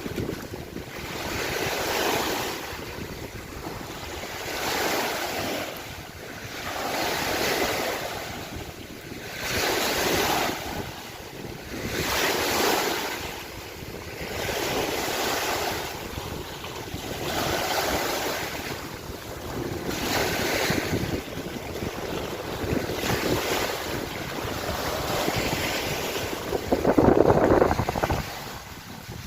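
Lake waves washing in, one wash about every two and a half seconds, the loudest near the end, with wind on the microphone.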